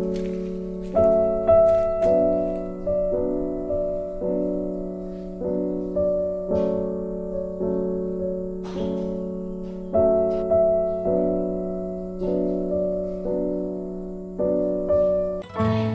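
Background piano music: a gentle melody of struck notes and chords, about two a second, each dying away. The music changes to another piece just before the end.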